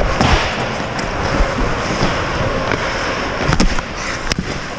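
Scramble in front of an ice-hockey goal: skates scraping the ice, with several sharp clacks of sticks and puck.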